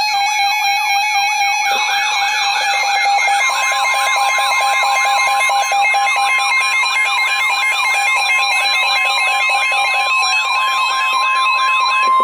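Rapidly repeating siren-like pitch sweeps, several layered at different pitches over a steady tone. A few seconds in, a steady high tone joins them: the NOAA Weather Radio 1050 Hz warning alarm tone that comes before a broadcast warning.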